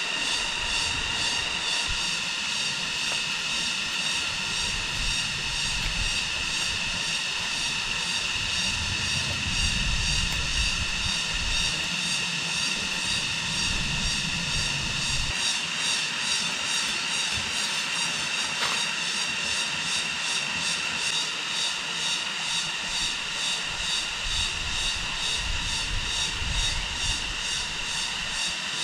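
A steady, high-pitched buzzing drone with a fast pulse, unbroken throughout, with a low rumble coming and going underneath.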